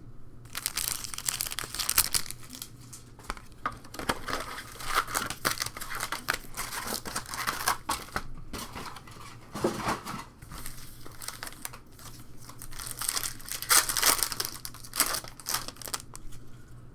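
Trading card pack wrappers being torn open and crumpled: a continuous run of crinkling and ripping, loudest about two seconds in and again around fourteen seconds.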